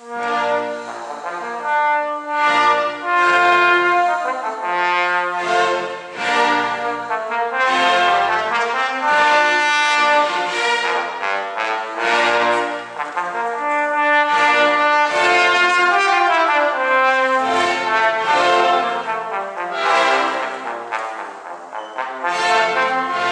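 Solo trombone playing a long passage of many short notes.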